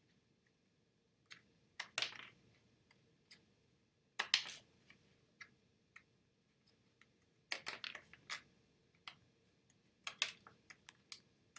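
Scissors cutting through cardboard, trimming excess strips: a scattered series of sharp snips and clicks in small clusters with pauses between them.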